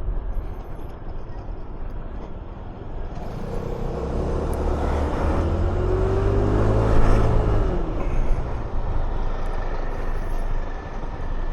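125cc motor scooter riding along: the engine runs steadily under wind noise, its note rising and then falling between about four and eight seconds in.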